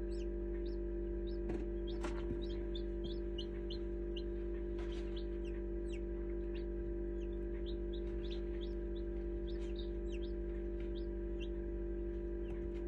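Newly hatched chicks peeping: many short, high, falling peeps, several a second, over the steady hum of the incubator. A couple of light knocks come about two seconds in.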